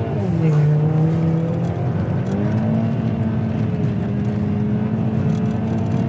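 Volkswagen Scirocco engine running hard on the road, heard from inside the cabin. Its note drops in pitch just after the start, steps back up about two seconds in, then holds steady.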